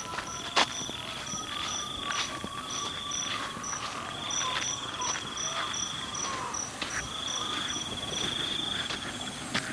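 Crickets chirping: one gives an even, high chirp about twice a second, another trills in spells of two to three seconds. Sharp knocks come now and then, the loudest about half a second in.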